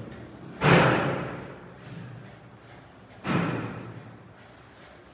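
Two loud thuds about two and a half seconds apart, each starting suddenly and dying away over about a second.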